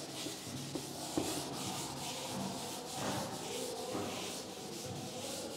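A chalkboard duster wiping chalk off a blackboard in repeated back-and-forth strokes: a faint, rhythmic rubbing swish.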